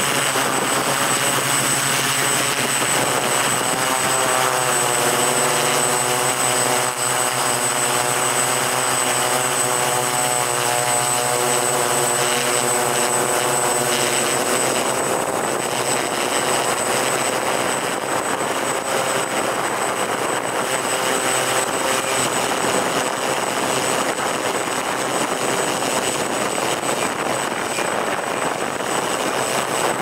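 Camera drone's motors and propellers buzzing steadily, heard from the aircraft itself, with a constant high whine; the motor pitch shifts for a stretch a few seconds in as it manoeuvres.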